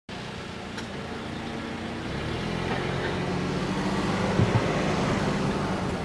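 A road vehicle's engine rumbling, growing steadily louder, with two short thumps about four and a half seconds in.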